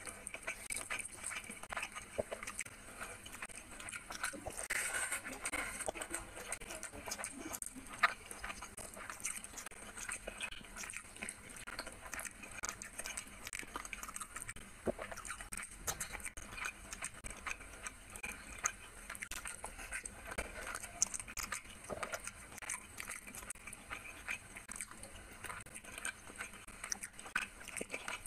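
Fingers squeezing and mixing rice with chicken curry on a glass plate: a steady run of small wet squishes and clicks of fingertips against the plate, with one sharper click about eight seconds in.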